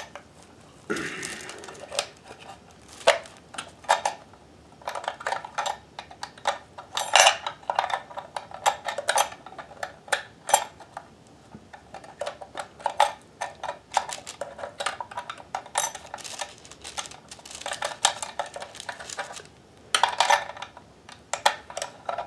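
Bobbin case being fitted into the hook race of a Kenmore 158.1030 sewing machine: a string of small metal clicks and clinks at uneven intervals, some in quick little clusters.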